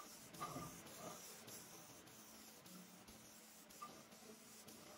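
Near silence: faint room tone with a few soft ticks.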